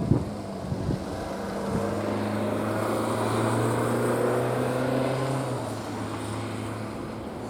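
A vehicle engine drones past, swelling to its loudest about halfway through and easing off as its pitch drops slightly. A single knock comes at the very start.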